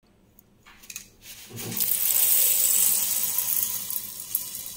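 Dry-roasted chana dal (split Bengal gram) poured from a steel bowl into a stainless steel mixer-grinder jar: after a low knock about a second and a half in, a dense rattle of the dry lentils hitting the metal jar, easing a little near the end.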